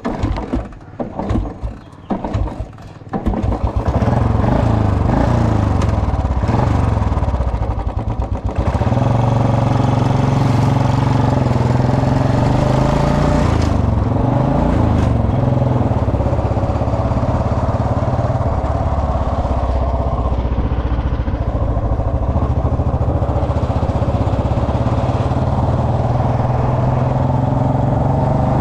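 Royal Enfield Bullet Electra's single-cylinder engine sputtering in several short bursts, catching after about three seconds and settling into steady running. About halfway through, its pitch rises and falls briefly.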